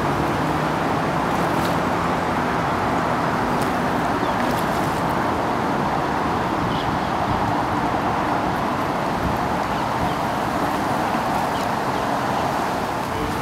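Steady rushing outdoor background noise at an even level, with a faint low hum in the first few seconds and a few faint clicks.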